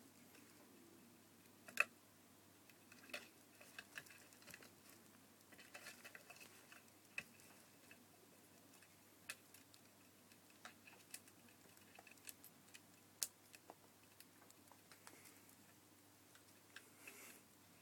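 Faint, irregular light taps and clicks of a kitten playing with a cat toy, over a quiet room. Two sharper clicks stand out, one near the start and one about two-thirds of the way through.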